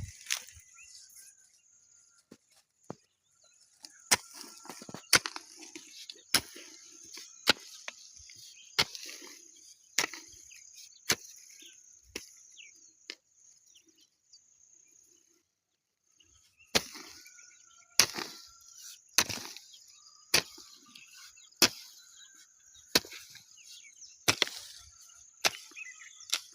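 Chopping blows on wood, struck at a steady pace of roughly one a second with a short pause in the middle, over a continuous high-pitched drone of insects.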